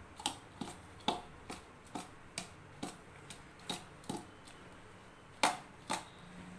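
A stainless steel spoon knocking and scraping against a steel bowl while stirring a dry flour-and-chopped-vegetable mix: short clinks about two a second, with two louder ones near the end.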